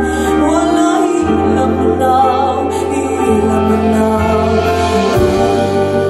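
Music: a slow song sung in Ume Sámi by a woman, over held deep bass notes that break off briefly about a second in and again near the end.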